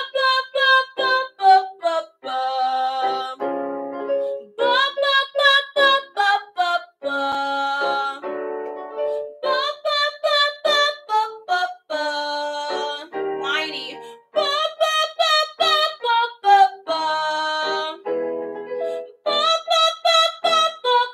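A woman singing a vocal exercise on repeated 'ba' syllables: several quick runs of short notes starting from the top of the scale, each followed by held notes, with piano accompaniment. The exercise is for blending chest and head voice into a balanced mix.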